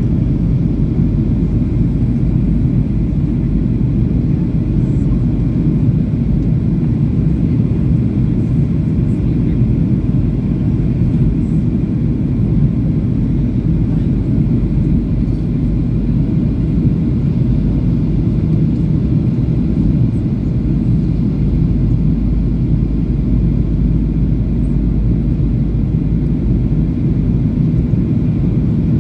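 Steady, low cabin rumble of a Boeing 737-800 in flight: the CFM56-7B turbofan engines and the rush of air past the fuselage, heard from a window seat by the wing. The level holds even throughout, with no change in engine power.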